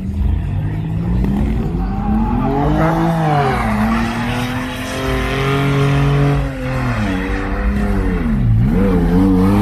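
A vehicle engine revving hard while its tyres squeal as it spins in circles doing donuts. The engine pitch climbs, holds high, drops sharply about eight and a half seconds in, then climbs again.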